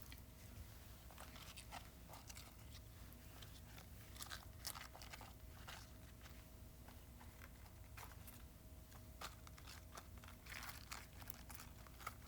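Faint, irregular crisp crunches and crackles, scattered unevenly, over a faint steady hum.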